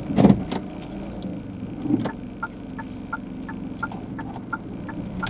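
Car's turn-signal indicator ticking evenly, about three clicks a second, starting about two seconds in, over the low steady hum of the engine running inside the cabin.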